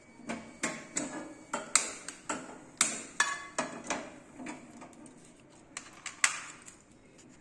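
Gas stove's spark igniter clicking repeatedly as the burner is lit, sharp clicks at about two to three a second that stop near the end.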